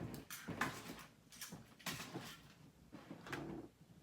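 Light handling noises: irregular short rustles and soft knocks, about two a second, as items are moved about by hand.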